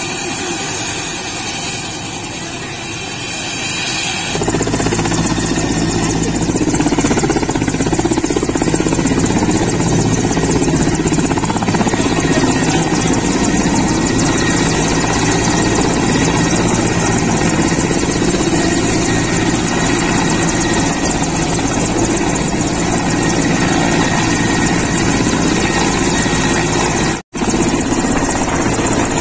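Mi-17 helicopter's turboshaft engines and main rotor running at the helipad, then lifting off in the last seconds. About four seconds in, the sound steps up abruptly to a loud, steady rotor-and-turbine noise. It drops out for a split second near the end.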